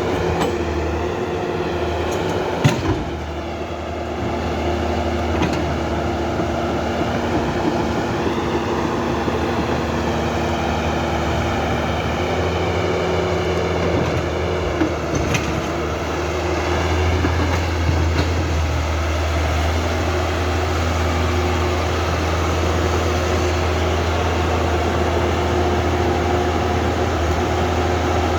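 Huina 1550 remote-control excavator running its battery-powered electric motors and gearboxes: a steady mechanical hum with a whine that rises and falls as the arm and grab claw move. A few sharp clicks come through, the loudest about three seconds in.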